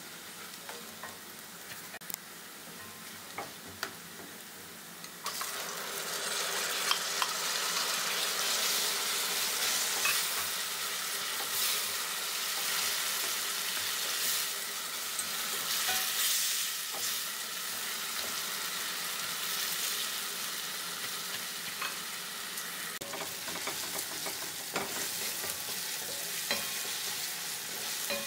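Chopped onion and tomato frying in oil in a stainless steel pan, with a spatula clicking and scraping against the pan as it is stirred. The sizzle jumps suddenly louder about five seconds in and eases a little near the end.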